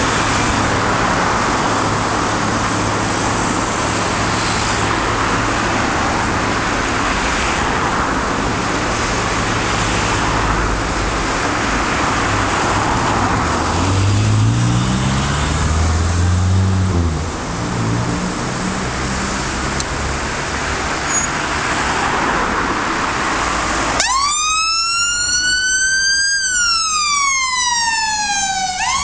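Road traffic passing, with one vehicle's engine revving up as it goes by about halfway through. About five seconds before the end, a fire and rescue water rescue van's siren switches on suddenly and wails in one slow rise and fall.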